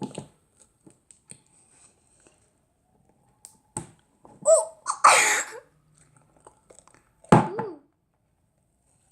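Homemade slime squeezed and pressed in the hands, giving wet squelching and popping noises in short bursts, the loudest about four to five seconds in and another just after seven seconds, with a few small clicks between.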